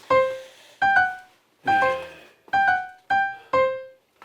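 Background piano music: short groups of bright notes, each struck sharply and dying away, separated by brief silences.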